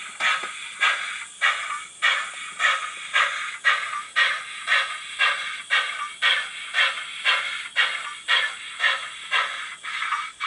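Model NER Class O steam tank locomotive's YouChoos sound decoder playing steam exhaust chuffs as the engine moves off. The chuffs come in a steady beat of about two a second through the locomotive's small on-board speaker.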